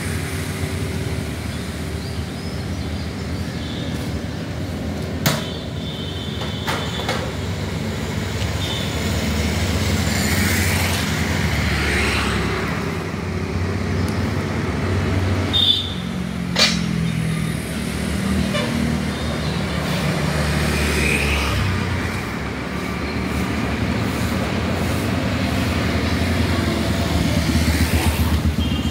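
Street traffic: a steady rumble of passing engines, with a few short sharp knocks or clicks, the strongest a pair about sixteen seconds in.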